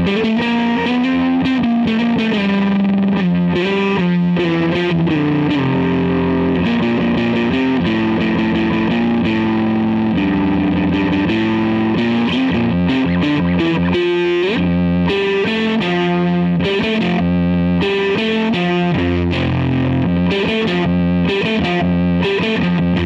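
Distorted electric guitar through a Boss DF-2 Super Feedbacker & Distortion pedal. A held feedback note sustains steadily underneath while further notes are played over it.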